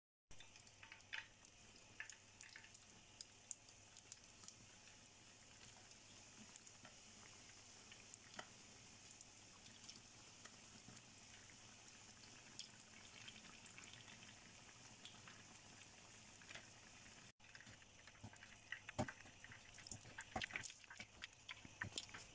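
Pirozhki deep-frying in hot vegetable oil: a faint steady sizzle with scattered pops and crackles, which come thicker and louder in the last few seconds.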